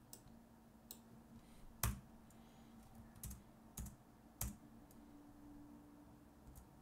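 Computer keyboard keys pressed one at a time, about six separate keystrokes spread over the first four and a half seconds, the loudest about two seconds in, over a faint low hum.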